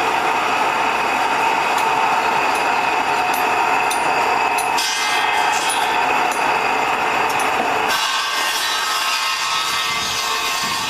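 Steady mechanical noise from construction machinery or power tools running, changing in character about five seconds in and again about eight seconds in.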